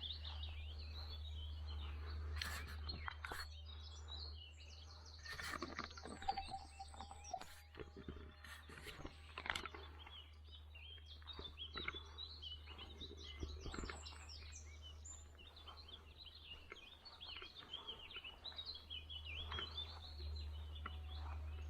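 Several small songbirds chirping and singing at once, with quick high trills now and then and scattered soft clicks, over a steady low rumble.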